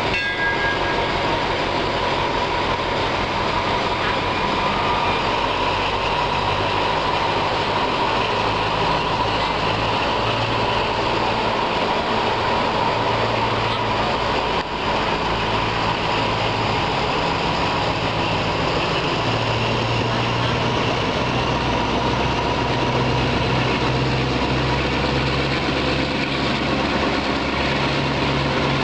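Diesel passenger train pulling out of a station, heard from a carriage window: steady engine drone and running noise as it gathers speed. The low engine note grows stronger about two-thirds of the way through.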